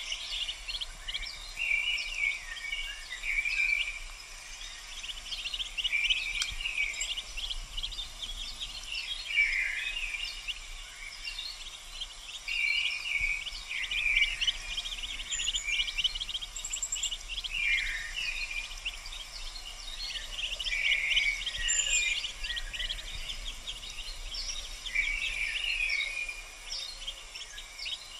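Mallard ducklings peeping: clusters of rapid, short, high-pitched peeps, some falling in pitch, repeated every few seconds.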